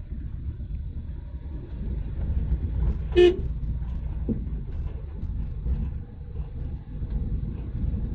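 Steady low rumble of a car driving, with a single short car-horn toot about three seconds in.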